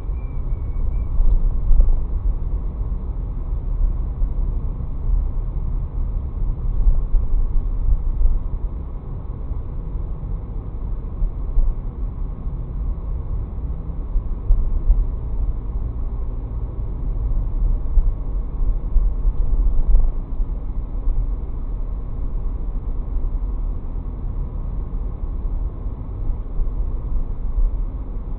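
Steady low rumble of a car driving on city streets, heard from inside the cabin through a dashcam's microphone, swelling and easing now and then.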